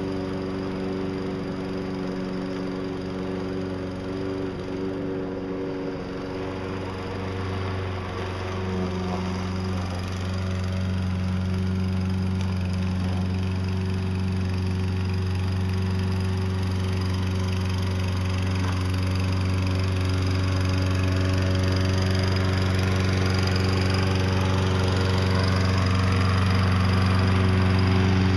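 Self-propelled walk-behind lawn mower's small gasoline engine running steadily while the mower pushes snow with a plow blade, growing gradually louder over the second half.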